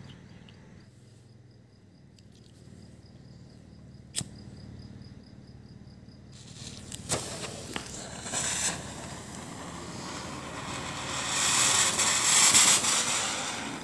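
A homemade anar fountain firework lit with a lighter. A few sharp clicks, then the lit firework hisses, the hiss swelling to its loudest near the end as it sprays sparks. Crickets chirp faintly in the first half.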